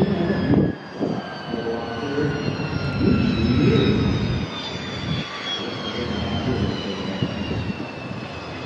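Lockheed U-2's single GE F118 turbofan running as the aircraft flies low over the runway on its landing approach: a steady jet rush with a high whine that slowly falls in pitch.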